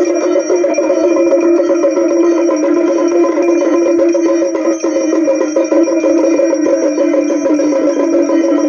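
Loud temple aarti music with no singing: steady sustained tones under dense, rapid percussion strikes.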